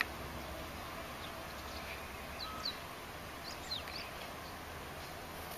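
Steady outdoor background noise with a few faint, short, high chirps about halfway through.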